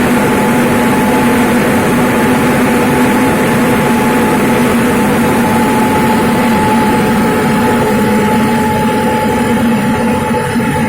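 Rice milling machine running steadily: a loud, even mechanical drone with a constant low hum and a higher steady tone above it.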